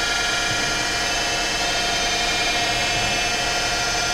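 Emcoturn 140 CNC lathe running a program, its axes moving under servo control: a steady machine whine made of several high, even tones over a low hum.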